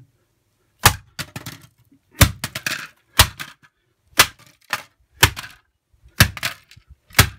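Acer Revo mini PC being smashed on concrete: seven hard blows about once a second, each followed by a short clatter of the plastic case and loose parts, the case cracking and breaking.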